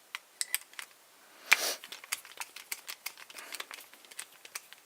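Scattered small clicks and taps of a plastic-bodied lockout padlock and tools being handled as it is taken apart, with one sharper click and a short scrape about a second and a half in.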